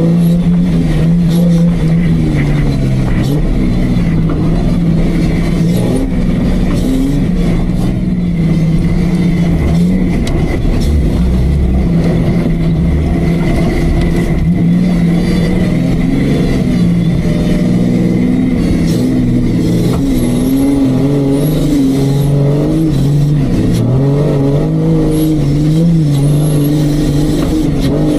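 Off-road Jeep's engine running hard under changing throttle, its pitch stepping up and down repeatedly as it labours over the course. A faint steady high whine runs alongside.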